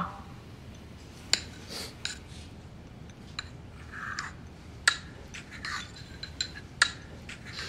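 Ceramic soup spoon clinking and scraping against a porcelain bowl as the soup is stirred. There are a few sharp clinks a second or two apart, with softer taps and scrapes between them.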